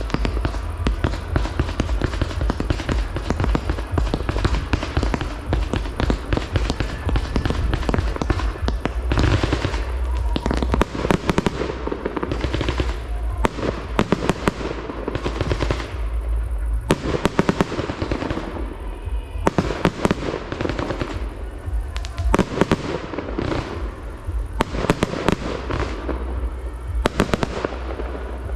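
Fireworks display: aerial shells firing and bursting in quick succession, a dense, unbroken stream of sharp bangs and crackle.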